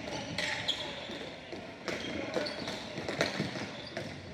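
Ball hockey game in play: scattered sharp clacks of sticks and ball, with short high squeaks of shoes on the playing surface.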